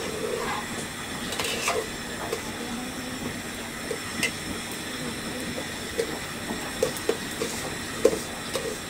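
A metal spoon scrapes and clicks against a large metal pot while stirring rice frying in it, over a steady hiss of the frying. The rice has been soaked and drained first so the grains stay separate.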